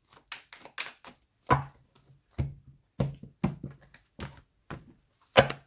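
A deck of tarot cards being shuffled and handled, with cards slapped down onto a table: an irregular string of sharp taps and slaps, the loudest near the end.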